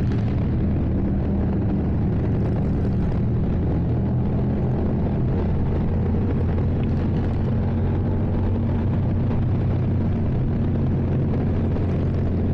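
Motorcycle engine running at a steady speed while cruising, with wind noise over the rider's microphone.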